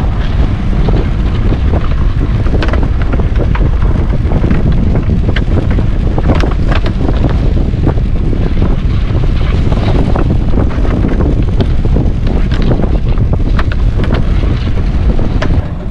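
Small boat under way at sea, with wind buffeting the microphone hard and irregular slaps of water against the hull.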